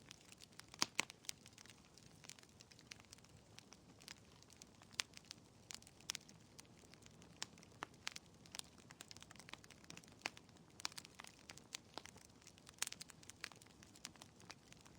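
Wood fire crackling in a fireplace: irregular sharp pops and snaps over a faint hiss, with a few louder pops about a second in, around five to six seconds in, and near the end.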